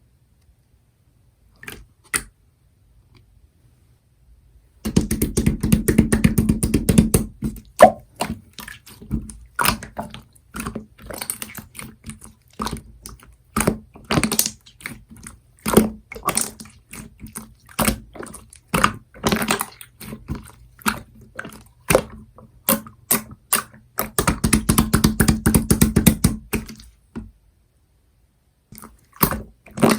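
Opaque pastel-yellow slime being squished and poked by hand, giving sticky wet clicks and pops. About five seconds in, and again near the end, it is worked fast for a couple of seconds in a dense run of crackling squelches.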